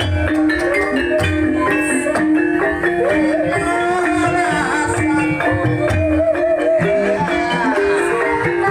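Banyumasan music for lengger dance: a wavering melody line with heavy vibrato over rapid repeated pitched percussion notes and regular low drum beats.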